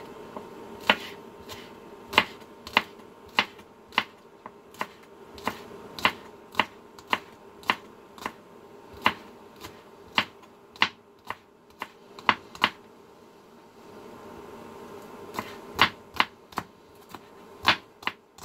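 Knife slicing green onions on a plastic cutting board: sharp taps of the blade against the board, about two a second. They pause for a couple of seconds after about twelve seconds, then resume.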